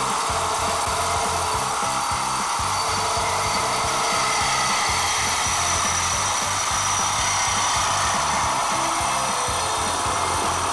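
IMAX 20V IMRS20 cordless reciprocating saw, fitted with a metal-cutting blade, sawing steadily through galvanized steel pipe at an even pace.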